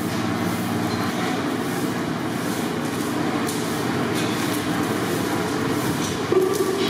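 A steady low rumble of unseen machinery, with hands rustling and pressing chicken pieces into panko breadcrumbs on a plastic sheet; the rumble swells briefly about six seconds in.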